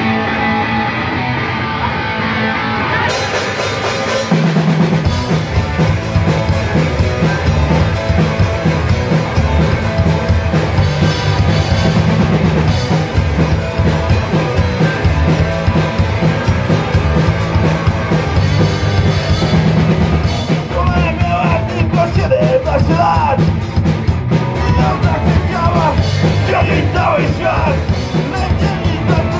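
Live punk rock band playing loud with electric guitars, bass guitar and a drum kit. Cymbals and bass come in about four seconds in, and from there the full band plays on.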